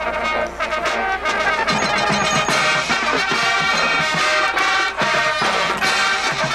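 High school marching band playing, its brass section sounding held notes and changing chords.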